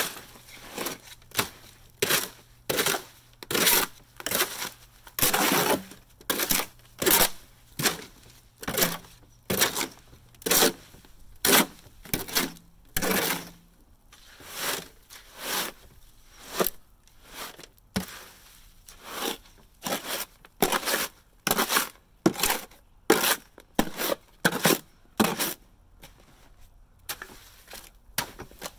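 Shovel blade scraping and chopping through a stiff, fairly dry concrete mix in a plastic wheelbarrow: a steady run of gritty scrapes, about one and a half strokes a second.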